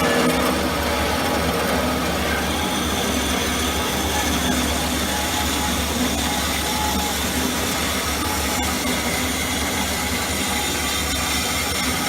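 W.F. Wells L-9 horizontal band saw running under power, its blade working through a cut. A steady low motor hum sits under an even hiss.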